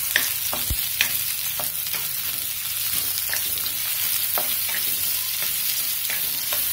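Sliced onions sizzling steadily in hot ghee in a kadai, stirred with a wooden spatula that knocks and scrapes against the pan in short irregular clicks, with one duller thump about a second in.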